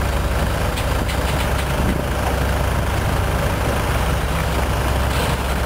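A boat's diesel engine idling steadily with a low, even rumble, powering the deck crane as it lifts a tractor, with a few faint clinks over it.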